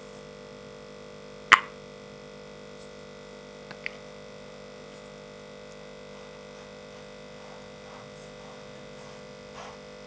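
Steady electrical mains hum, with one sharp click about one and a half seconds in and a faint short click near four seconds.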